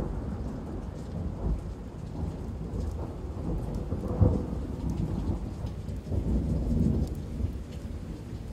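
Thunderstorm sound effect: low rolling thunder over rain, with a louder peak of thunder a little after four seconds in.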